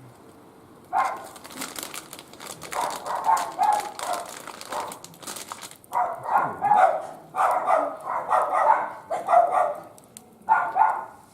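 A dog barking repeatedly in short bursts, most densely in the second half. Crackles and snaps from the wood fire burning in the barbecue grill are heard through the first half.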